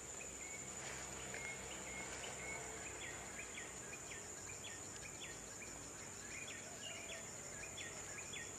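Faint forest ambience: a steady high-pitched insect drone, with a run of short repeated chirps over it from about a second in.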